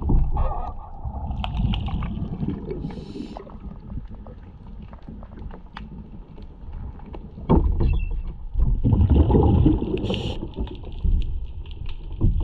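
Diver's regulator breathing heard underwater: hissing inhalations through the regulator and rumbling gushes of exhaled bubbles, about two breaths.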